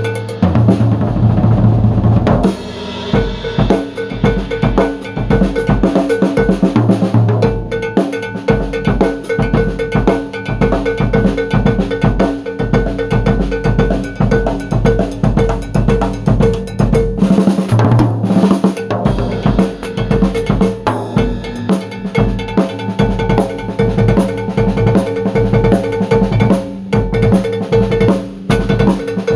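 Cowbell played in a fast improvised pattern with a Pinguim drum kit, its bell ringing at one steady pitch over rapid bass drum and snare strokes.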